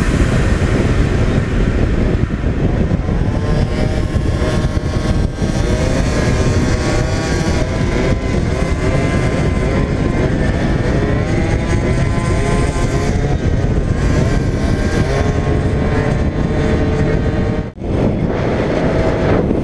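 Two-stroke Yamaha Aerox scooter engine, fitted with a DR70 cylinder kit and a Leovince TT exhaust, running at riding speed. Its pitch rises and falls with the throttle, over a steady rush of wind on the helmet-mounted camera. The sound drops out briefly near the end.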